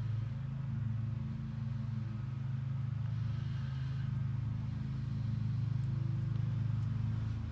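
A steady low hum from a running motor.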